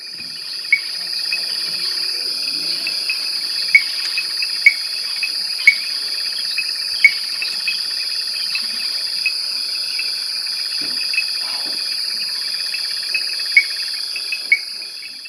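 A dense insect chorus: a steady high-pitched trill with rhythmic pulsing chirps beneath it and louder sharp chirps at irregular moments. It fades in at the start and out at the end.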